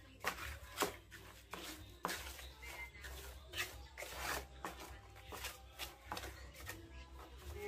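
Steel pointing trowel scraping and patting wet cement mortar in a series of short, irregular strokes, about one every half second.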